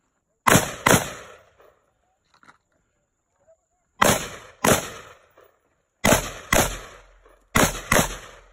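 Eight gunshots fired in four quick pairs, each pair about half a second apart, with a few seconds between the pairs.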